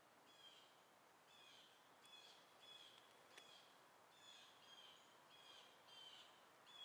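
Very faint bird calls, short high chirps repeating about every half second in runs, over a soft hiss.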